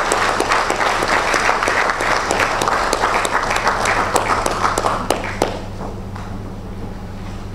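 Audience applauding, a dense patter of many hand claps that dies away about five seconds in.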